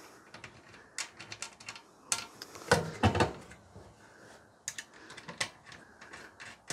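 Light metallic clicks and taps of a bearing nut being fitted and threaded by hand onto a clothes dryer's drum axle, with a couple of louder knocks near the middle.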